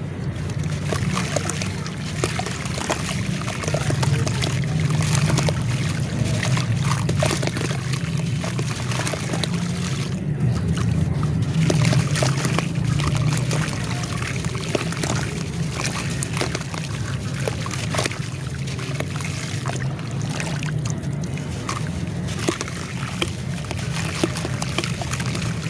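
A crumbly gray block broken apart by hand over a tub of black charcoal water: a dense run of small wet crackles and crumbling, with splashing and sloshing as the pieces and powder drop into the water.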